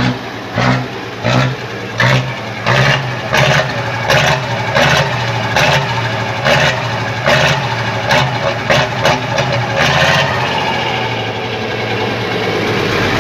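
FNM 180 truck's diesel engine running, swelling in short, evenly spaced pulses about one and a half times a second as the throttle is touched and released; it settles into a steadier run near the end. The engine is being run after years of standing idle.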